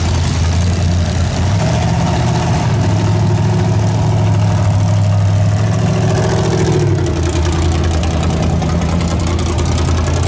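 A heavy vehicle engine running steadily, its note stepping up a little about a second and a half in and dropping back about seven seconds in.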